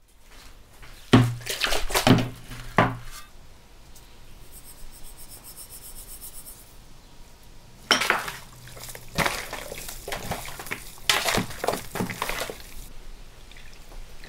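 A large metal basin being set down on a wooden table: three clanks with a low ring. Then raw chicken wings are handled and shifted inside the metal basin, with a run of irregular knocks and wet rustling.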